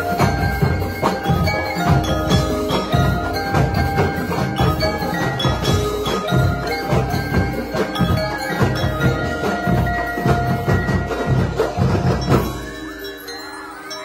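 A drum and lyre corps playing live: marimbas and other mallet percussion over a driving drum beat. About twelve and a half seconds in, the drums drop out, leaving ringing mallet and bell tones.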